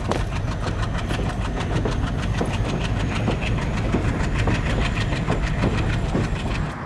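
Passenger train rolling along the platform, its wheels clacking rapidly and evenly over the rail joints over a steady low rumble.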